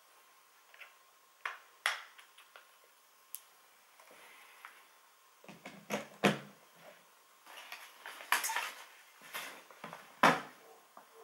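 Hands handling cables and equipment on a desk: scattered clicks, taps and light knocks, busier in the second half, with the sharpest knocks about six and ten seconds in.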